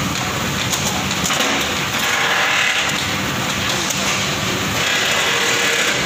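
Steady factory-floor machinery noise in a vehicle assembly plant: a constant low hum under hissing that swells and fades every few seconds, with a few sharp clicks about a second in.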